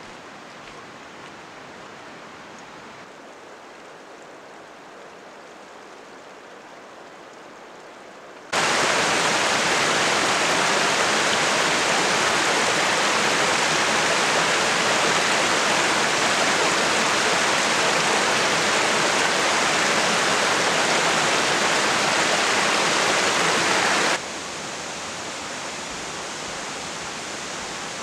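Shallow rocky creek rushing and splashing over stones, a loud steady water noise that cuts in suddenly about a third of the way in. Before it there is only a faint steady rush, and near the end it drops suddenly to a quieter steady water rush.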